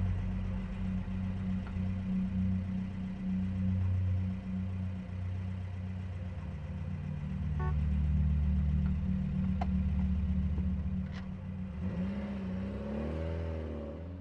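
Low, steady rumble of a car's engine and road noise as heard inside the cabin while driving. Near the end, wavering bowl-like ringing tones of a music score fade in.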